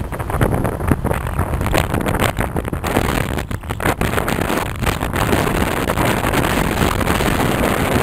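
Wind buffeting the microphone of a camera on a moving vehicle, gusting unevenly over a steady low running and road noise.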